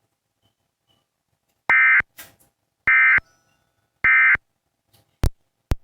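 Emergency Alert System end-of-message data bursts: three short, identical bursts of warbling two-tone digital data about a second apart, signalling the end of the alert. Two sharp clicks follow near the end.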